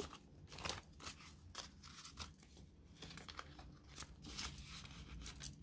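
Faint, irregular rustling and crinkling of Australian polymer banknotes being leafed through by hand and slid into plastic binder pockets.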